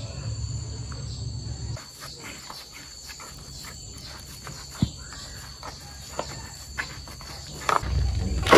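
Insects chirring steadily in two high tones, with scattered rustles and clicks and one sharp knock about five seconds in. A low rumble stops about two seconds in and comes back near the end.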